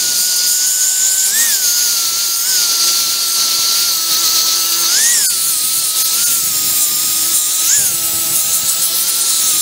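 Corded DeWalt electric drill spinning a coarse sanding disc against a wooden board, grinding off hardened wood glue without clogging the paper. A steady motor whine runs over harsh sanding hiss, and the pitch jumps up briefly a few times.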